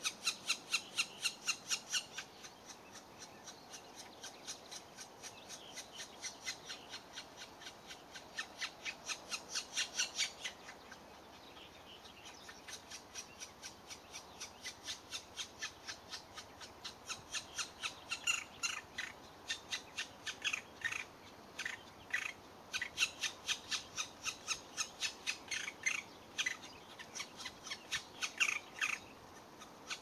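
Black woodpecker nestlings begging from inside the nest hole: a rapid, evenly repeated run of short, sharp calls, pausing briefly near the middle and growing louder in the second half, as the adult feeds them.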